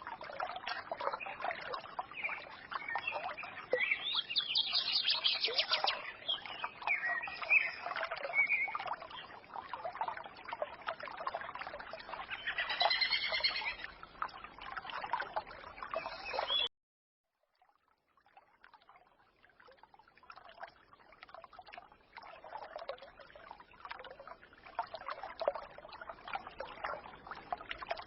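Forest brook babbling steadily, with small birds chirping and twittering over it. About seventeen seconds in, the sound cuts off abruptly to dead silence for about a second, then the stream fades back in, quieter at first.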